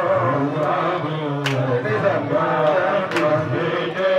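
A man's voice chanting religious verses through a microphone, in long held notes that slide up and down in pitch, with two sharp clap-like hits.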